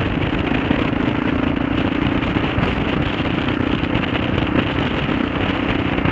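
A 2003 Kawasaki KLR650's single-cylinder engine running steadily, its exhaust a rapid, even popping, with wind noise on the microphone.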